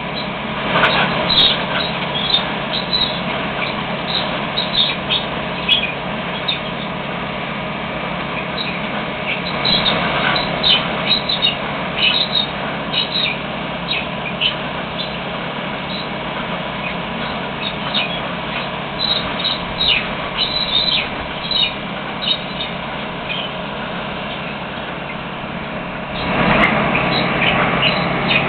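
LORAM ballast cleaner at work: its machinery running with a steady drone and constant whine, and many short, high-pitched squeaks and clatters over it. It grows louder about 26 seconds in.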